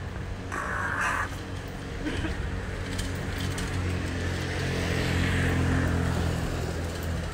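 A motor vehicle engine running close by, a steady low hum that swells about five to six seconds in and cuts off at the end. A brief higher call or squeal comes about half a second in.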